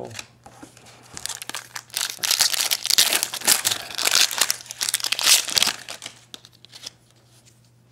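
A foil trading-card pack wrapper being torn open and crinkled, a dense run of crackling and rustling lasting about five seconds.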